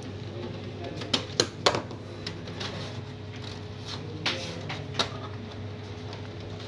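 Sharp plastic clicks and knocks from the HP LaserJet MFP M233dw's back cover being unscrewed and pulled off its clips: a quick cluster of three about a second in, then two more around four and five seconds in, over a steady low hum.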